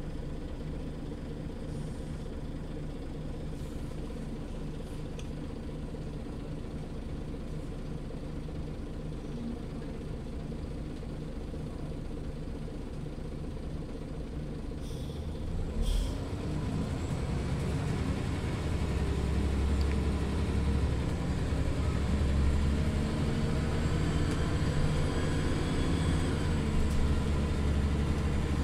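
Scania OmniLink CL94UA articulated city bus's diesel engine idling steadily. About halfway through there are a couple of short, sharp sounds, then the engine revs up with a rising pitch and grows louder as the bus pulls away.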